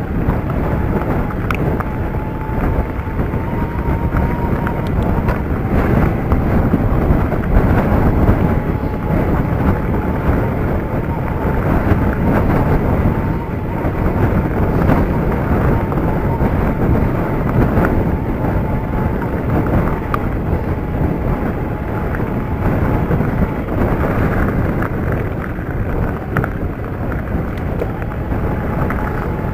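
Mountain bike rolling over a gravel farm track: tyres on loose stones and the bike rattling, under steady wind noise on the microphone, with a faint wavering whine underneath.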